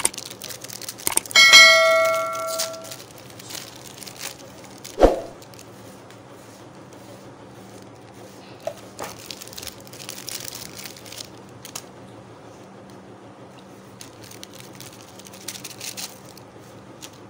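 A couple of mouse clicks and then a bell ding that rings and fades over about a second and a half, the sound effect of a subscribe-button animation. A single thump follows about five seconds in, then faint rustling and handling noises.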